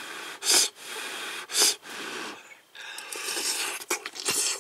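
A person's breathy mouth sounds over a spoonful of hot yukgaejang (spicy beef and vegetable soup): two short, loud puffs about a second apart, then softer breathing.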